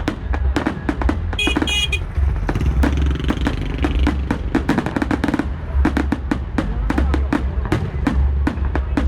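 New Year's Eve fireworks bursting in rapid, irregular succession: a dense stream of sharp bangs over a steady low rumble. A brief high whistling tone sounds about one and a half seconds in.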